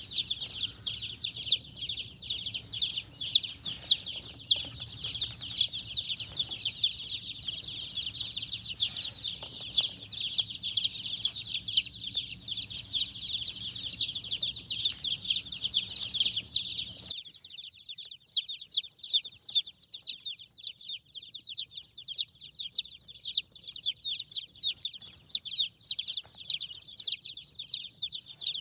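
A brood of Amberlink chicks peeping nonstop, a dense chorus of short, high, falling cheeps. About 17 seconds in, a low hum underneath cuts off and the peeping thins to fewer, separate calls.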